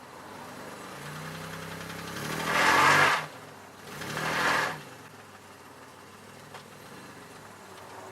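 2002 Chevy Malibu engine running, revved twice in short bursts about two and a half and four seconds in, then dropping back to a steady idle.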